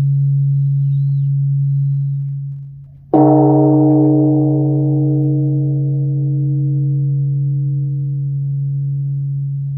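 Large bronze Korean Buddhist temple bell (beomjong) struck once with a wooden log about three seconds in, just as the low hum of the previous stroke has died away. It rings with a steady low hum under higher overtones that slowly fade.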